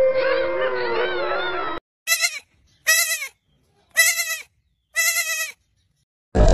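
Wolf howling with wavering pitch, cut off sharply about two seconds in. Then come four short bleating calls from a giant panda, about a second apart, each dropping in pitch at its end.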